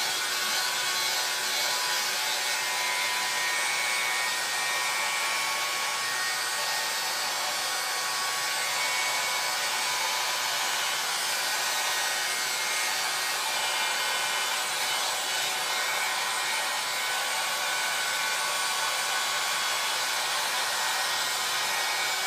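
Helen of Troy 1.5-inch hot-air styling brush running steadily, its fan blowing a constant whirring rush of air as it is twirled through a beard.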